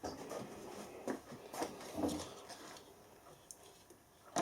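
A few light clicks and taps of small metal parts being handled, from working on an opened angle grinder gearbox. They are spaced irregularly over the first three seconds, then go quiet.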